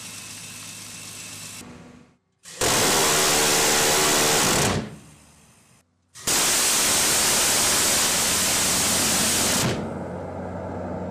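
C-RAM's M61A1 Vulcan 20 mm six-barrel Gatling cannon firing two long bursts, one of about two seconds and one of about three and a half seconds. Each is a loud continuous buzz that starts and cuts off abruptly. A steady lower hum from the mount runs before, between and after the bursts.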